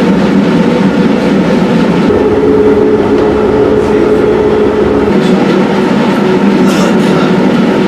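Running noise inside a moving bus or tram: a loud, steady rumble and rattle. A steady hum of several tones joins about two seconds in and drops out about five seconds in.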